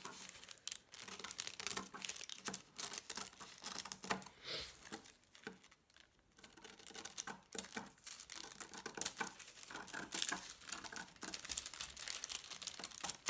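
Scissors snipping through thin tissue paper, a run of irregular crisp cuts mixed with the paper rustling and crinkling as it is turned, with a short lull about halfway through.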